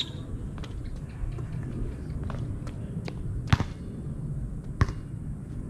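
Basketball bouncing on a concrete court: a handful of sharp, separate bounces, the loudest about three and a half seconds in and another near five seconds.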